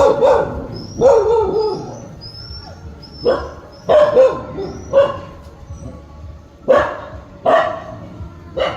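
Dogs barking and yipping during play: about eight short, sharp barks at irregular gaps of roughly a second, some drawn out into a falling whine-like yelp.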